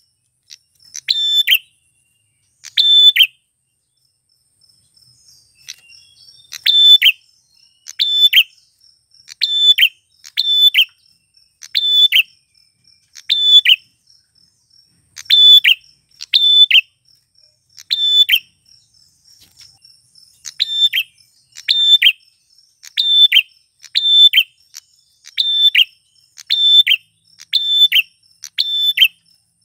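A male prenjak (prinia) calling over and over: short, sharp, loud calls about once a second, with a pause of a few seconds near the start. A faint steady high insect trill runs underneath.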